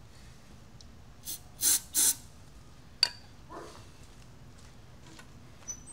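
Aerosol can of engine starting fluid sprayed in two short hissing squirts, with a fainter squirt just before them, followed by a single sharp click.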